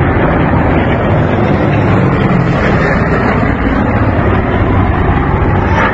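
Piston engines of WWII warbirds, a four-engine bomber and a single-engine fighter, drone steadily overhead. A brief sharp click comes near the end.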